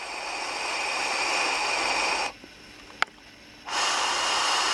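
Air drawn through the empty OBS Engine and OBS Engine Nano vape atomizers, both with their airflow fully open and no coils fitted. One steady hiss lasts about two seconds, there is a sharp click about three seconds in, and a second hiss begins near the end. The Nano, with its side airflow, gives a slightly noisier and more peculiar sound.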